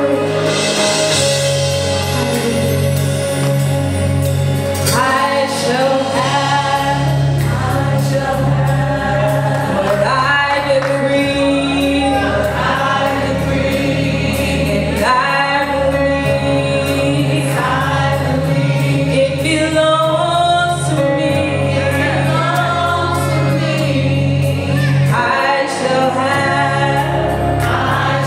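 Gospel praise-and-worship team singing together into microphones, sung phrases over steady instrumental backing with a low, moving bass line.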